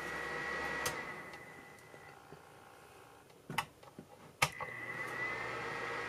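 Alrocket mini electric fan heater's fan running with a steady high whine, then a click about a second in and the fan winds down to quiet. Two more clicks come a little after the middle, and the fan starts again, its whine rising back to a steady pitch.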